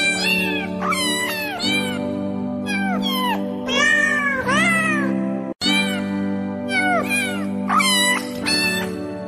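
Cat meows repeated over and over, each rising and falling in pitch, over background music with steady held tones. The sound cuts out for an instant about five and a half seconds in.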